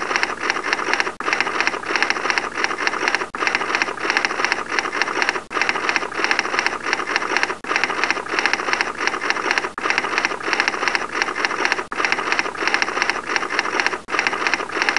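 Typewriter sound effect, a rapid clatter of keystrokes, with a short gap about every two seconds.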